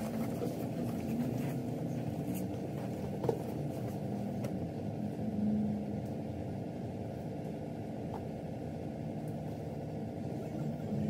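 Steady low rumble of room noise, with faint muffled voices and a few light knocks.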